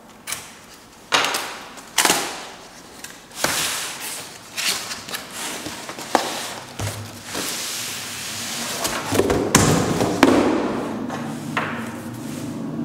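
Cardboard shipping box being torn open by hand: sharp rips and scrapes of taped flaps and cardboard, with thuds of the box on the table. A longer rubbing of cardboard on cardboard from about seven to ten seconds in, as the inner box slides out.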